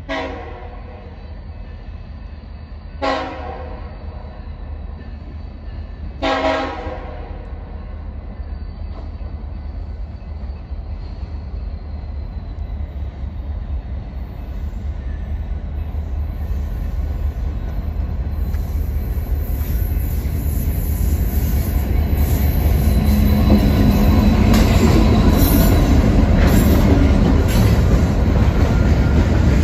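A BNSF freight train sounds three short horn blasts about three seconds apart. Its rumble then grows steadily louder as it draws near, with clattering wheels over the last third.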